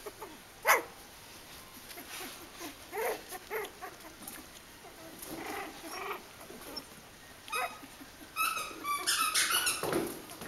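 Three-week-old Kooikerhondje puppies squeaking and yipping as they play, short high calls scattered throughout. One loud yelp about a second in, and a quick run of yips near the end.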